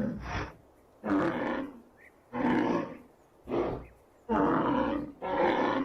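Rhinoceros calling: a series of about six short, rough grunts, roughly one a second, with brief pauses between them.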